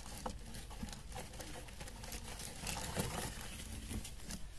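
Irregular light rustling and small tapping clicks, with one louder knock about three seconds in.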